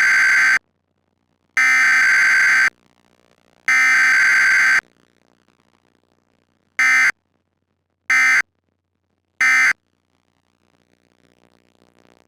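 Emergency Alert System digital data bursts from a weekly test: three screeching header bursts of about a second each, the first already under way, then after a short pause three short end-of-message bursts. No attention tone sounds between them.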